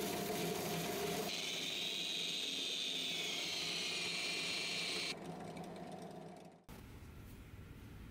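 Drill press spinning a small steel ring with sandpaper pressed against it, then a steady high-pitched whine from an angle grinder's polishing pad working the same spinning part. The machines switch off about five seconds in and wind down.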